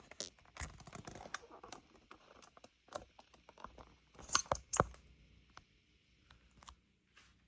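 Small hard plastic toy pieces being handled, clicking and tapping against each other and the playset, with a few sharper clicks about four and a half seconds in.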